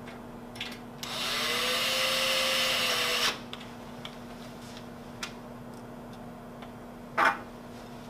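Cordless drill-driver running for about two seconds, its motor pitch rising then holding, as it drives a T30 screw into a hinge body on the steel enclosure frame, then stopping sharply. A short sharp knock near the end.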